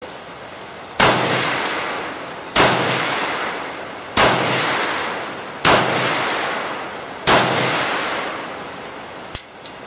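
Dan Wesson .357 Magnum revolver fired five times at a steady pace, about one shot every one and a half seconds, each loud report trailing off in a long echo. A faint tick follows each shot about half a second later, and two small clicks come near the end.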